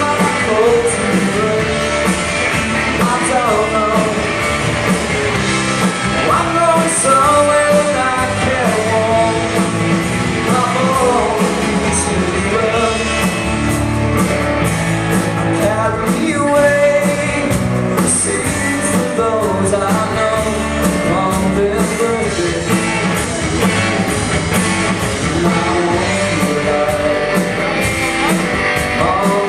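Live rock band playing a song, with a singer over the band.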